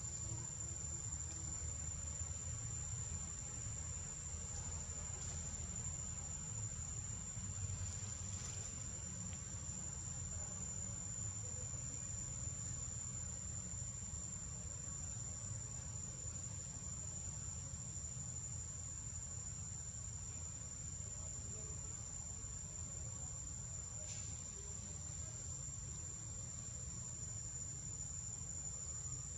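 Chorus of insects making a continuous, steady high-pitched whine, over a low rumble.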